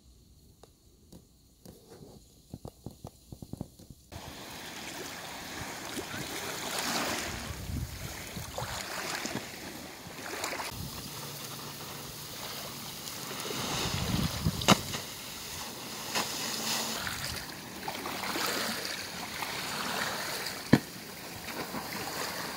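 Wind on the microphone with lake water lapping and splashing. The first four seconds are faint, with a few light clicks. Then the noise comes in suddenly and stays, rising and falling in gusts, with a couple of sharp knocks and low rumbling surges.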